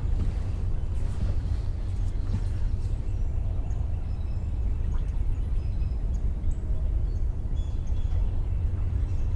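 Steady low outdoor rumble with a few faint, short, high chirps and ticks above it.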